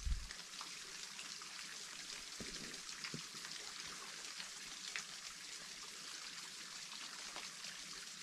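Faint, steady hiss of trickling water, with a few soft ticks scattered through it.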